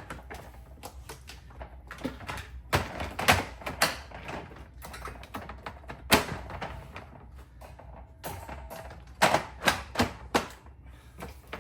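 Collapsible dog crate being unfolded and popped open: a run of sharp clicks, clacks and knocks from its folding frame and panels, with the loudest knocks about three seconds in, about six seconds in, and a cluster near the end.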